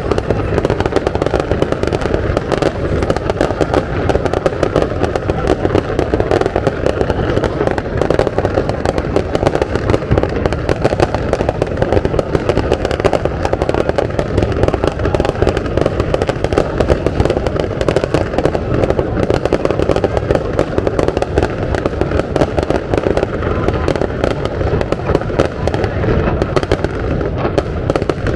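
Fireworks display: a dense barrage of bangs following one another rapidly and overlapping without a break.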